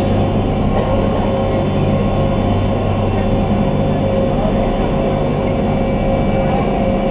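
A small passenger ferry boat's engine running steadily under way, a constant low drone with a steady hum.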